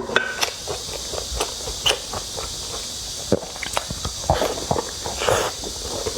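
Close-miked eating sounds: wet chewing and lip smacks, an irregular run of short clicks over a steady hiss.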